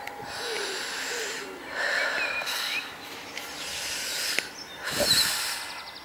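Outdoor ambience: three spells of rustling, hissing noise, each about a second long, with a few short bird chirps between them.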